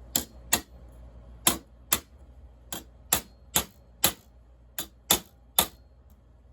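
Hammer striking steel: eleven sharp metallic taps in quick groups of two to four, setting the rivets of a new chainsaw bar sprocket tip.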